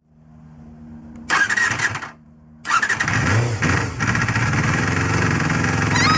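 Honda MC23 Jade's MC14E 250 cc inline-four motorcycle engine being started: after a faint low hum, it fires loudly about a second in, falls away, then catches again near three seconds and keeps running. The owner says this engine makes an abnormal noise.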